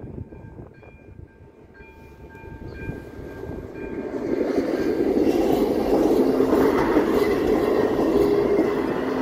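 Level-crossing warning bell ringing in a steady repeated chime while a regional passenger train approaches. The train grows louder from about two seconds in and passes over the crossing loudly in the second half, covering the bell.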